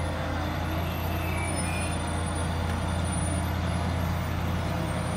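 Diesel switcher's engine running with a steady low drone as it pulls a steam locomotive out of the engine shed.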